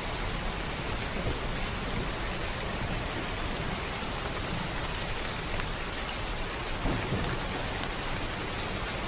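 Steady heavy rain on a roof, an even hiss with a few sharper single drop hits, over a low rumble of thunder.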